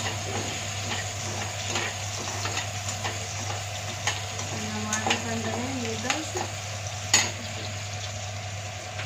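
Chopped onion sizzling in hot oil in a steel kadhai while a metal spatula stirs it, scraping and clinking against the pan now and then; the sharpest clink comes about seven seconds in. The onion is just turning light brown.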